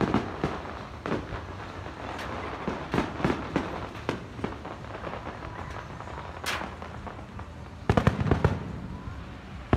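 Aerial fireworks display: a string of separate sharp bangs and pops from shells bursting, with a dense run of loud crackling bangs about eight seconds in.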